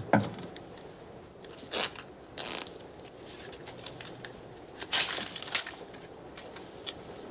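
A deck of playing cards being handled and shuffled: several short riffling rustles among small clicks and snaps of the cards.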